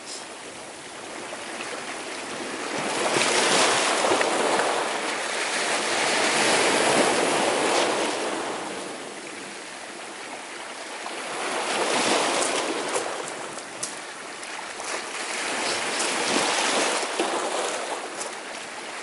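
Sea surf breaking and washing over rocks and pebbles on a rocky shore. The noise swells and fades in surges every four to five seconds as each wave comes in and draws back.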